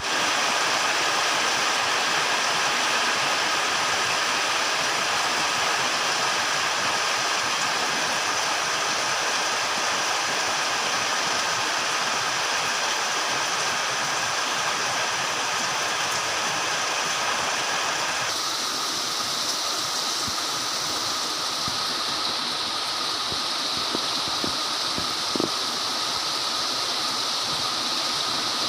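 Heavy torrential rain pouring down in a dense, steady hiss; its tone changes abruptly about two-thirds of the way through.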